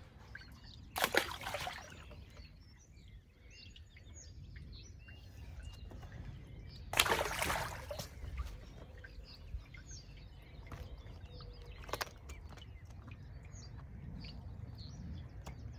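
Two short splashes, about a second in and about seven seconds in, as tench are dropped back into the lake. Around them are faint birdsong over a low rumble of wind, and a single click about twelve seconds in.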